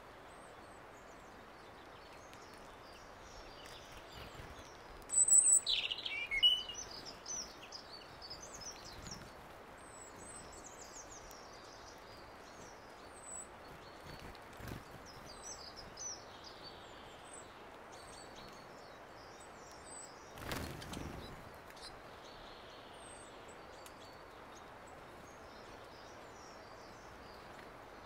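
Small songbirds chirping and calling over a steady outdoor hiss, with a loud burst of quick chirps about five seconds in and scattered high calls after. A short rush of noise about twenty seconds in.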